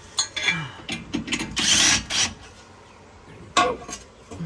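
Ratchet wrench clicking and metal tools knocking as the driveshaft is bolted up under a Jeep Wrangler JL, with a louder rasping stretch of ratcheting about one and a half seconds in and a sharp knock near the end.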